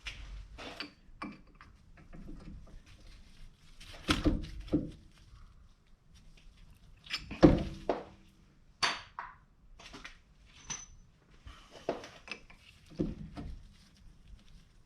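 Scattered knocks and metallic clinks of a brake caliper and its slide bolts being handled and fitted by hand, with the loudest thunk about seven and a half seconds in.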